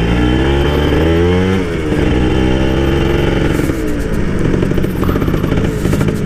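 Two-stroke motorcycle engine under way, its revs climbing for about a second and a half, then dropping off and running on steadily.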